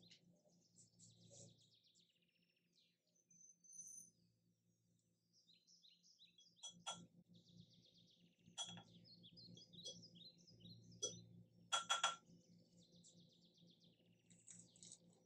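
Faint birdsong, small birds chirping over and over. A few light clinks, most likely a measuring spoon touching the glass bowl, come about seven, nine and twelve seconds in.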